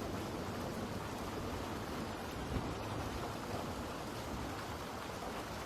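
Steady rainstorm noise: an even hiss of heavy rain falling and water running, with no distinct events.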